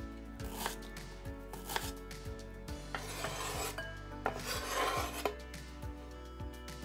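Kitchen knife cutting a raw carrot on a bamboo cutting board: a few sharp blade strikes on the board, and two drawn-out rasping cuts about three and four and a half seconds in as the blade saws through the carrot.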